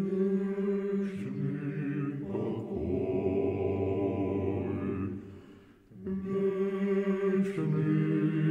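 Orthodox church choir singing a slow unaccompanied chant with long held notes, in two phrases with a brief break a little past halfway.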